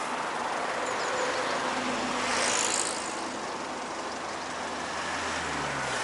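Road traffic passing on a wide multi-lane road. Near the end a vehicle goes by close, its low engine note falling in pitch.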